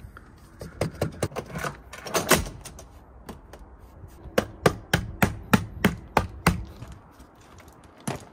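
Wooden pull-out table on locked heavy-duty slide rails knocking and clacking as it is pulled and pressed down, with a quick run of sharp knocks in the middle.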